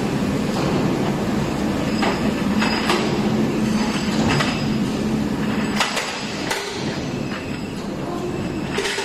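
Rubber-belt crawler shot blasting machine running as its skip loader lifts and tips a load into the drum: steady machine noise with metallic clanks and squeals. A low hum falls away about six seconds in.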